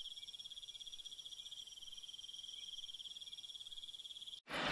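Insects trilling steadily: a high, rapidly pulsing chirr that cuts off abruptly near the end.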